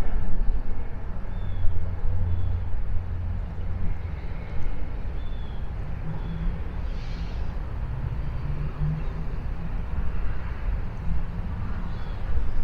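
Low, steady engine rumble with some slowly shifting low tones, and a few faint short high chirps.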